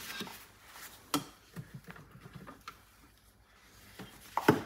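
Scattered light clicks and taps of kitchen utensils handled at a stainless steel mixing bowl, with a sharper knock near the end.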